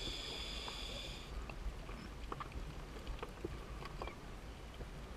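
Underwater sound through a camera housing. A diver's breathing gear hisses for about the first second, then stops. Scattered faint clicks and ticks follow over a steady low rumble.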